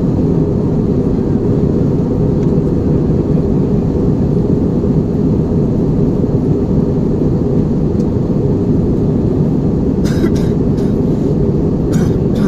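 Steady engine and airflow roar inside the cabin of an Airbus A320 in flight, with a few brief rattles or clicks near the end.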